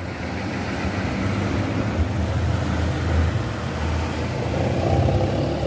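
Bus engine running as the bus pulls away, a steady low rumble with road noise.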